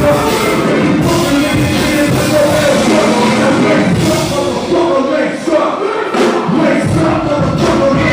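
Loud live rap music over a concert sound system, with a vocal over the beat and a crowd. The bass drops out briefly about five seconds in and comes back near seven seconds.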